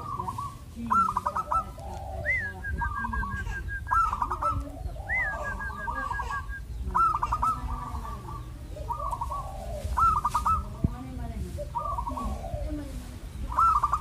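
Zebra dove (perkutut) singing its cooing song, short phrases of quick rippling notes repeated about every second or so. About two and five seconds in, a higher call glides up and breaks into a quick string of short notes.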